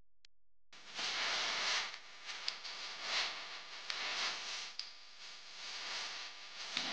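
Whooshing noise sound effects of a TV sports intro, starting after a brief silence and swelling and fading several times, with a couple of sharp clicks.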